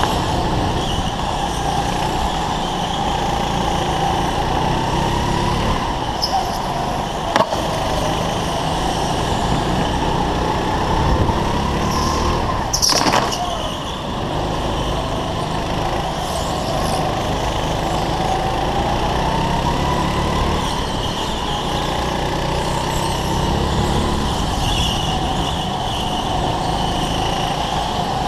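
Go-kart engine running at speed, its pitch rising and falling as the kart accelerates out of corners and slows into them, heard from onboard the kart. A sharp knock about seven seconds in and a short harsh burst about halfway through.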